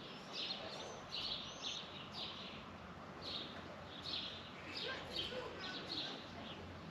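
Small birds chirping repeatedly in short calls, several a second, over faint outdoor background noise.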